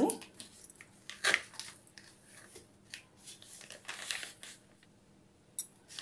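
Plastic pack of Prim disinfecting wet wipes crinkling in a few short, scratchy bursts as its resealable flap is peeled back and a wipe is pulled out.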